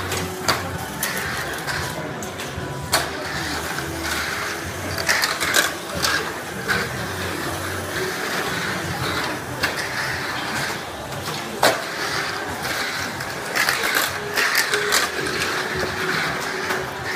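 Tamiya Mini 4WD car running laps of a plastic track: a steady whirr of its motor and gears with the rattle of its rollers along the track walls. Now and then sharp knocks, clearest three times, stand out.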